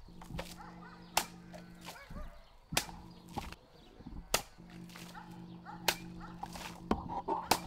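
Cossack sabre swung through the air and cutting through water-filled plastic bottles: a series of sharp swishes and cuts, several in a few seconds. A steady low hum runs underneath for much of it.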